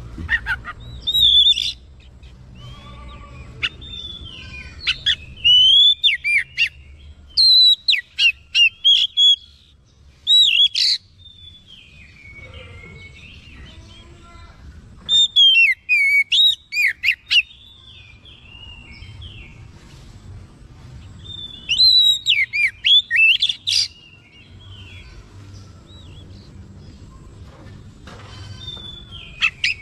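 Oriental magpie-robin singing in loud bursts of a second or two, each a string of sharp whistled notes that swoop up and down, with gaps of a few seconds between bursts. This is the excited, full-voiced song that kacer keepers call gacor.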